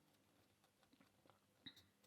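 Faint, scattered clicks of a lock pick and tension wrench working the pins of a small Stabilit A20 padlock, with one sharper click about a second and a half in.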